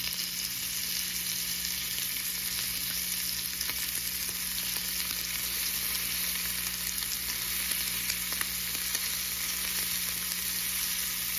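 Bacon-wrapped sausages sizzling in a nonstick frying pan: a steady hiss of frying fat with small scattered crackles, over a steady low hum.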